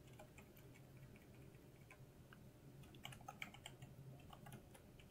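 Faint computer keyboard typing: scattered soft keystrokes, with a quicker run of them about three seconds in, as a folder name is typed.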